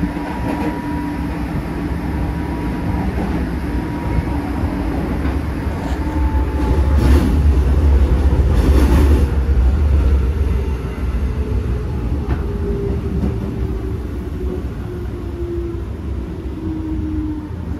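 Interior running sound of a JR 205 series 3100 electric multiple unit: wheel-on-rail rumble with the traction motors' whine, which falls steadily in pitch as the train slows. The rumble swells for a few seconds in the middle.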